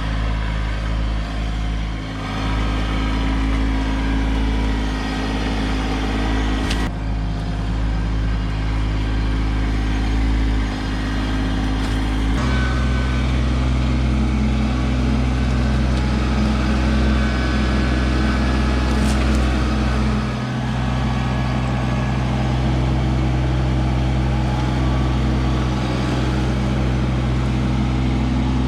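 Kubota LX2610 compact tractor's diesel engine running steadily. About twelve seconds in, its note steps up and holds, as when the throttle is raised.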